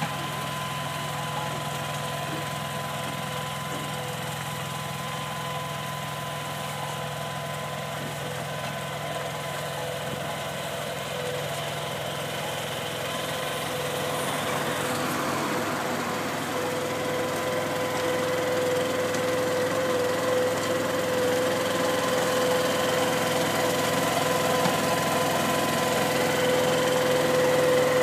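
Engine of a tracked bulb-planting machine running steadily as it works, with a steady whine over it; the sound grows louder from about halfway through.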